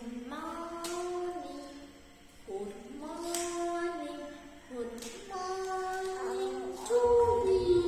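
A young child singing a song in long, held notes that step from pitch to pitch. A low rumble comes in near the end.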